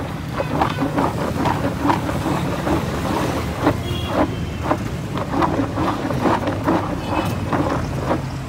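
Raw cut potato sticks being shaken and tossed in a plastic tub, clattering many times over a steady low mechanical hum.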